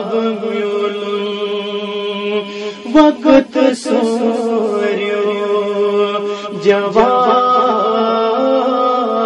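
Sung recitation of a nazm: a voice chanting in long, held notes. There is a short, louder, choppier passage about three seconds in and another sharp accent near seven seconds.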